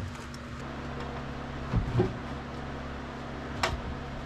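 A steady low hum with a thump at the start, a couple of knocks about two seconds in and a sharp click near the end, like something being handled or shut.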